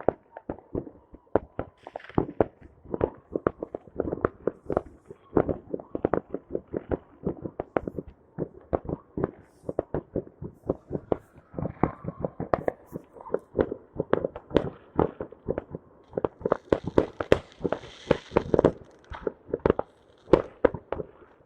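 Fireworks going off in a rapid, irregular string of bangs and cracks, several a second, with a crackling burst late on.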